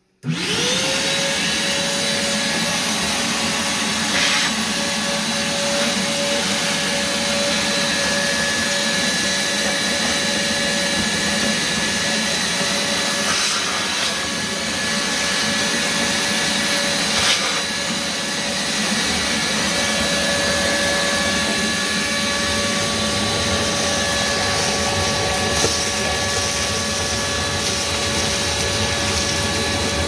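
Hart 6-gallon stainless steel 5 HP wet/dry shop vac switching on, its motor whine rising quickly to speed, then running steadily with a loud rushing hiss of suction. A few brief clicks come through as the crevice tool works.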